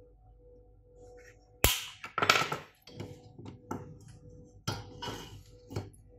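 Knocks, clicks and scrapes of an aluminium heatsink with IGBT transistors being handled and turned over on a workbench. A sharp knock comes about a second and a half in, followed by several shorter clatters, over a faint steady hum.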